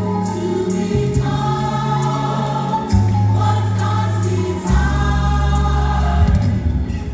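Gospel choir song with long held bass notes that shift every couple of seconds under the massed choir voices.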